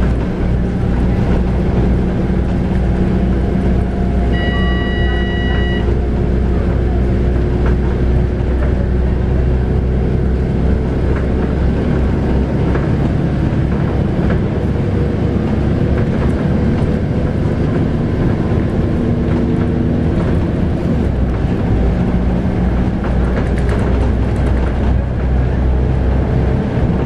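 Scania K280UB bus under way, heard from inside: its 9.3-litre five-cylinder Scania DC9 diesel and ZF Ecomat automatic gearbox running steadily, the engine note slowly rising through the middle. A short electronic tone sounds about five seconds in.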